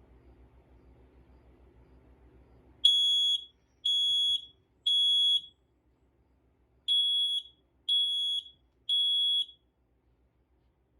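Kidde i9010 battery smoke alarm sounding its test signal. It gives the temporal-three evacuation pattern: three high-pitched beeps about a second apart, a pause, then three more, and then it stops.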